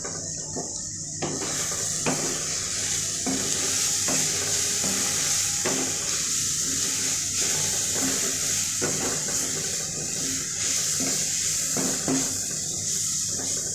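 Beef with onions and spices sizzling in a pan as it cooks in its own released juices, a steady hiss, with a few sharp clicks of a spoon against the pan. The hiss grows louder about a second in.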